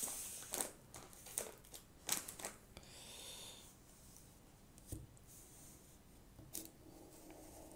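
Faint crinkles and taps of a plastic pretzel bag being handled and set down on a table, then quiet handling with a soft knock about five seconds in.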